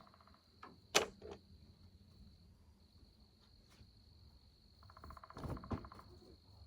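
A woodpecker drumming, a fast, even run of knocks lasting about a second, near the end, over a steady high-pitched chorus of calling insects. A single sharp click about a second in is the loudest sound.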